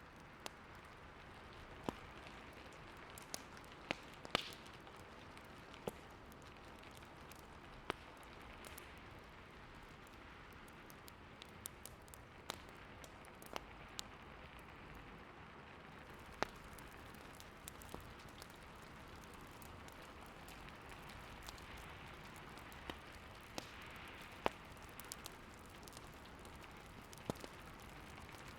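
Wood fire crackling, with irregular sharp pops over the steady hiss of a snowstorm's wind.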